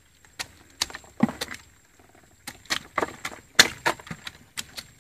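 About a dozen irregular sharp clicks and knocks from the catch of live giant freshwater prawns being handled and rummaged through, the loudest a little past the middle.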